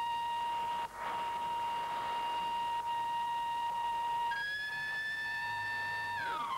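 Skylab's rapid delta-P alarm: a steady electronic warning tone signalling that the station is losing atmosphere. About four seconds in, a second, higher tone joins it, and near the end the pitch starts to fall.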